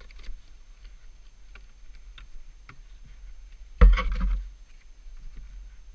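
A loud thump about four seconds in, as a boot knocks against the plastic rear cargo box of a Polaris side-by-side, with faint scattered clicks before and after it.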